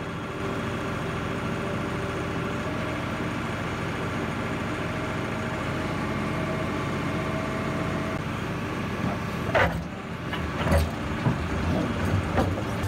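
Tractor engine running steadily, with a few knocks and thuds in the last few seconds.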